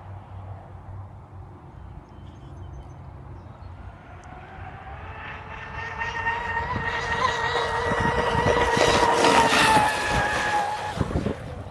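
Pro Boat Zelos 48 RC catamaran's electric motors whining at high speed as it approaches and passes close. The whine grows louder over several seconds and drops slightly in pitch as the boat goes by, with water spray hissing at the loudest point.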